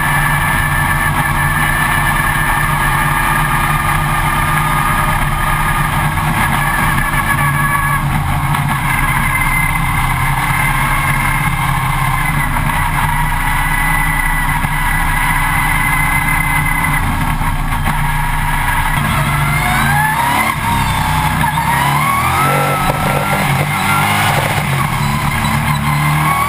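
A Stock Car Brasil race car's V8 engine, heard from inside the cockpit, runs hard at steady high revs. About twenty seconds in, the revs fall and then swing up and down through gear changes.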